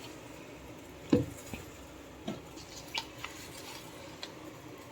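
A spoon clinking lightly against a pot about six times, spread over a few seconds, the firmest clink about a second in, as tea leaves are spooned in and stirred.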